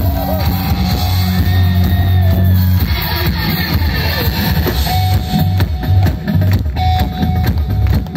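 Rock band playing live through the stage sound system, with guitars, bass and drum kit, heard loud from within the crowd. About three seconds in, the held bass gives way to a choppier, drum-driven rhythm.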